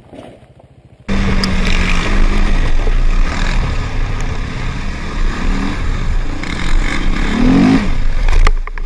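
Sport quad (ATV) engine running hard, heard from on board, with the revs rising briefly a couple of times. The sound starts abruptly and loud about a second in, after a quieter moment.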